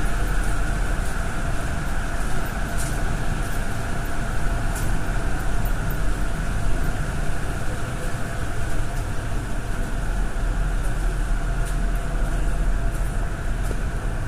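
Steady machinery drone of a pumped-storage hydroelectric power station, a strong low hum with several steady tones held over it, and a few faint ticks.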